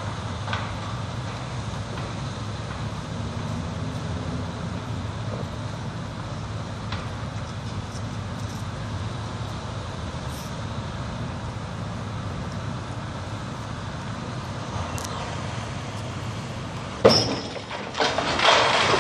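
Steady low diesel rumble of the crawler crane's engine; near the end a wrecking ball slams into the brick power-plant wall with a sharp crack, followed by bricks and rubble crashing down.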